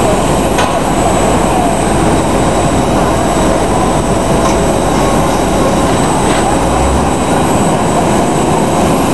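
Jet aircraft noise on an airport apron: a loud, steady roar with a thin, steady high-pitched whine over it.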